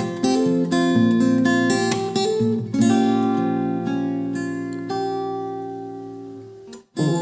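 Acoustic guitar strumming chords as a song's intro. About three seconds in a chord is left to ring and slowly fade, and after a brief break near the end the strumming starts again.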